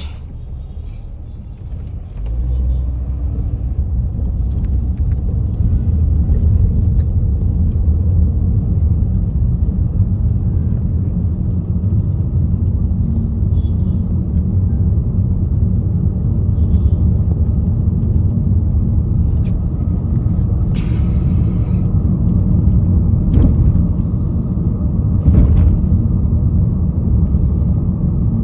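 Steady low rumble of a moving vehicle, stepping up in level about two seconds in. There are a few light clicks and a short hiss about three quarters of the way through.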